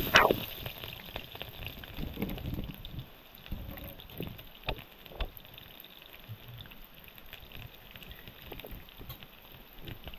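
Food crackling and sizzling as it cooks: irregular pops and clicks over a low hiss, with a louder burst right at the start.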